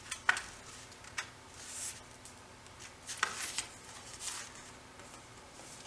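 Stiff cardstock being handled and worked into a slot: several short sharp paper clicks and a few soft rustles.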